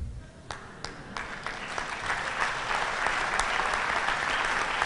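Audience applauding: a few scattered claps at first, swelling into steady, dense applause by about two seconds in.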